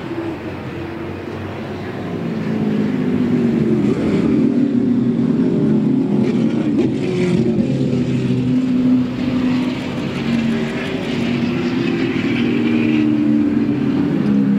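Engines of several muscle race cars running through a corner at once, their notes rising and falling as the drivers brake and accelerate. The sound gets louder a few seconds in as a car passes close by.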